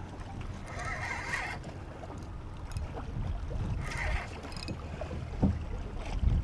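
Wind rumbling on the microphone over water around a boat, with two short higher-pitched rasps, about a second in and about four seconds in.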